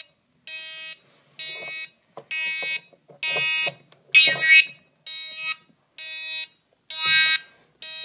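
Homemade fire alarm panel's buzzer sounding in pulses, about one half-second buzz each second.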